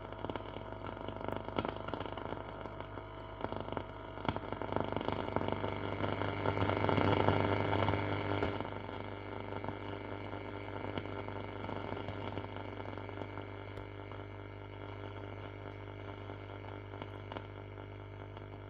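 A 1939 Mende Super MS216-W valve radio giving static and hiss with no station coming through, over a steady low hum. The noise swells for a couple of seconds in the middle, then settles back.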